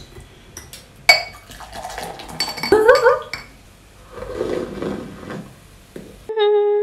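A bottle opener snaps the metal cap off a glass beer bottle about a second in, followed by clinks and beer glugging into a glass with a rising pitch as it fills. Near the end a person hums a long, steady contented 'mmm' after drinking.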